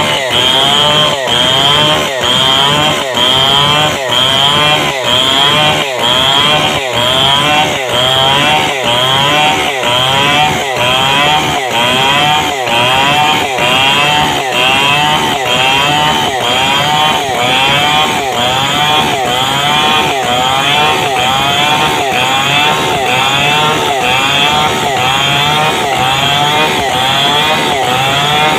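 Large Stihl chainsaw running at high revs while cutting lengthwise along a log, its engine note dipping and recovering in a steady rhythm a little under twice a second as the chain works through the wood.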